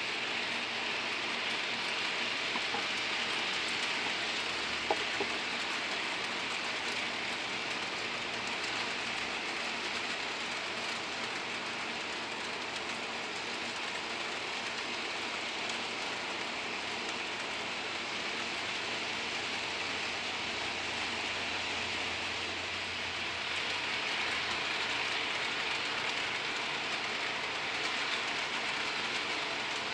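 HO scale Athearn Blue Box KCS GP40 model locomotive running with its freight cars: a steady whirring hiss of the motor and wheels on the track, with a sharp click about five seconds in.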